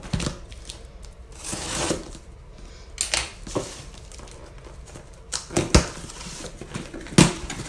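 A cardboard shipping box being opened with scissors: scattered clicks, snips and scrapes as the tape is cut and the flaps are handled, with a couple of sharper knocks in the second half.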